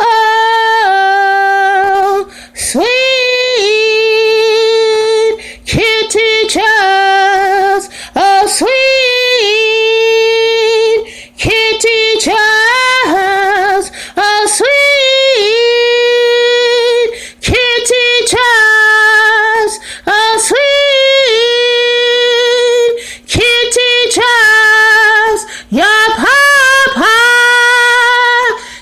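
A woman singing unaccompanied in a high register, holding long sustained notes, with short pauses for breath every two or three seconds.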